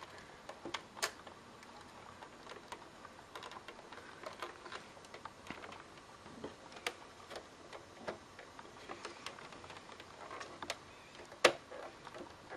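Scattered light clicks and knocks of plastic and metal as a PS3 Slim's power supply unit is fitted into the console chassis, with one louder click near the end.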